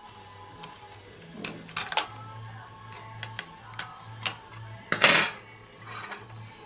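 Metal tweezers clicking and clinking against the tape-transport mechanism of an opened AKAI GX-F31 cassette deck: scattered small clicks, with a louder clatter about two seconds in and a louder rattle about five seconds in, over a low steady hum.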